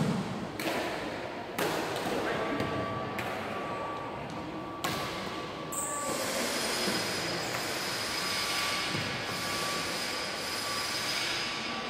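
Badminton rackets striking a shuttlecock in an echoing sports hall, a few sharp hits about every second and a half. From about six seconds in, a steady rushing noise with a thin high whine takes over.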